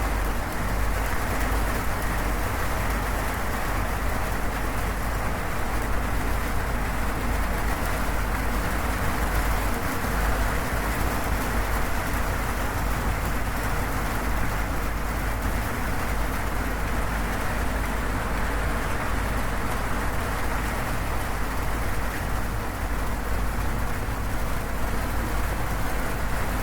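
Steady heavy rain drumming on a zinc sheet roof, an even dense patter with a low rumble beneath it.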